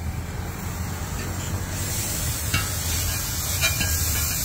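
Chopped onion and tomato masala sizzling on a large flat iron tawa as it is stirred, with a few light clicks. The steady hiss grows brighter about two seconds in.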